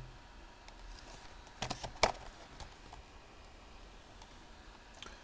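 Packaging being handled in a quiet room: a few faint clicks, then a short cluster of sharper clicks and a brief rustle about two seconds in.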